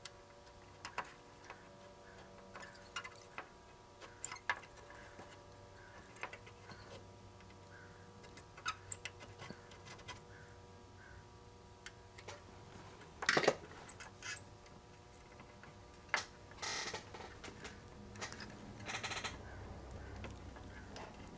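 Quiet soldering work on a circuit board: scattered light clicks and taps from handling the iron, solder and board, over a faint steady electrical hum. A few brief louder noises come about 13 seconds in and again near the end.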